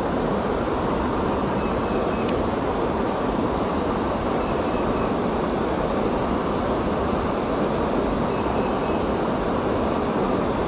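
Steady rushing of a swollen river, its current running high over and around a concrete low-water slab. A single faint click comes about two seconds in.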